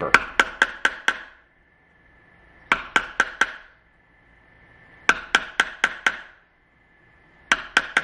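Hammer tapping the handle of a screwdriver used as a makeshift chisel, cutting a deeper recess for a deadbolt plate in a door edge. The taps come in four quick bursts of four or five sharp strikes, about four a second, with short pauses between them.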